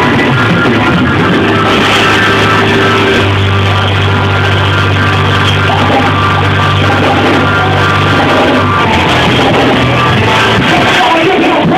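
Loud live band music in a rock style, with guitar and drums over held bass notes that shift pitch a few times.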